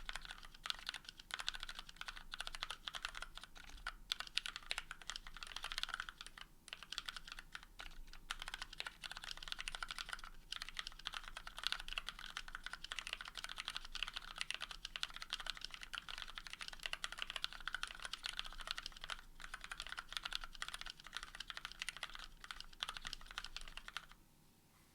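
Typing on a custom 60% mechanical keyboard with lubed, retooled Cherry MX Black linear switches, a carbon fiber plate, foam between PCB and plate, and GMK keycaps. It is a continuous run of fast, irregular key strikes that stops just before the end.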